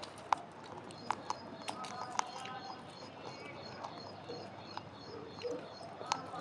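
Scattered sharp clicks and taps with a few faint short chirps, in the quiet between an Alexandrine parakeet's loud calls.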